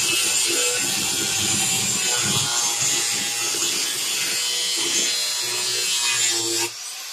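Angle grinder running against the rusted steel of a truck door skin: a steady high grinding hiss over a motor whine that cuts off near the end.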